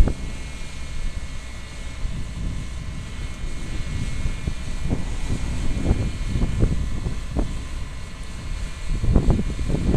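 Claas Lexion 450 combine harvester running steadily at work, a constant engine and threshing drone with a thin steady whine above it. Uneven low rumbling surges come and go, stronger near the end.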